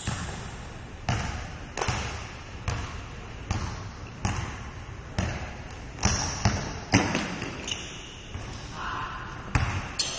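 Basketball dribbled on a gym floor: steady bounces a little under a second apart, each echoing in the hall. The bounces come quicker for a moment around the middle, pause, then two more land near the end.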